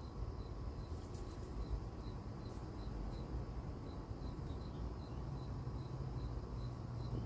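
Cricket chirping steadily at night, a regular high pip about three to four times a second, over a faint low hum.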